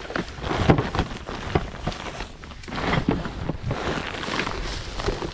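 Irregular rustling, snapping and footsteps as a person pushes along a narrow mangrove path through soft, sticky mud.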